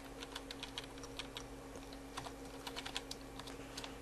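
Computer keyboard being typed, a run of quick, irregular key clicks, faint over a steady low hum.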